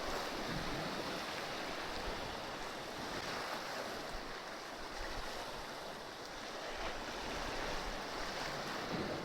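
Sea waves washing steadily against shore rocks, with wind buffeting the microphone.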